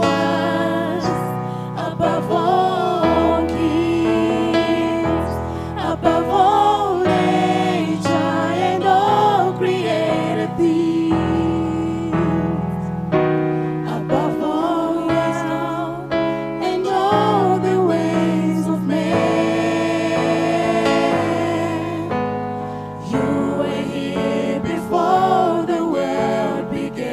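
Gospel song: a choir singing a slow melody over keyboard and bass.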